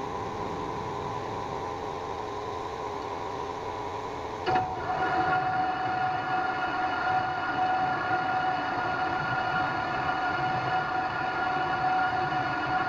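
Metal lathe running: a steady mechanical hum with a whine. After a click about four and a half seconds in it gets louder and the whine stronger, as the spindle and large chuck start turning.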